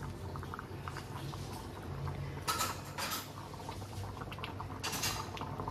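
A metal spatula scraping and knocking against a metal kadai while stirring thick chholar dal as it simmers and bubbles, with a few sharper knocks about halfway through and near the end over a low steady hum.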